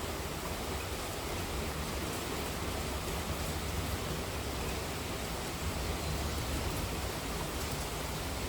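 Monsoon rain falling steadily, an even unbroken hiss.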